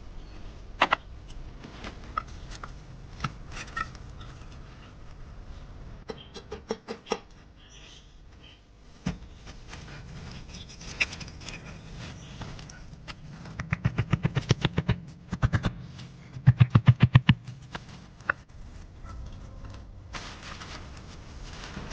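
Scattered clicks and taps, then two quick runs of rapid knocking in the second half, the second run the loudest.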